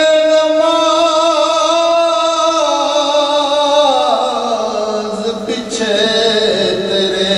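A man singing a naat, an Urdu devotional poem in praise of the Prophet, in a solo voice. He holds one long steady note for about four seconds, then slides down to a lower pitch and carries on.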